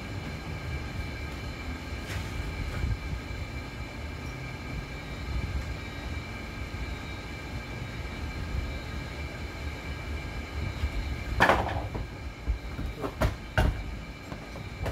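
Clatter and knocks from handling an opened inverter welder's metal case and parts on a workbench: one loud clatter about eleven seconds in, then a few sharp knocks. Under it runs a steady low rumble with a faint high whine.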